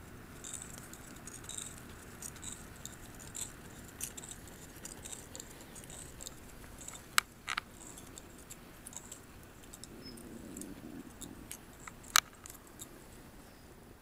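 Small paper-and-wooden-skewer wind-powered walking robot clicking and tapping irregularly as its legs and crank linkage work against a wooden table, with two sharper clicks about seven and twelve seconds in. Light wind rush underneath.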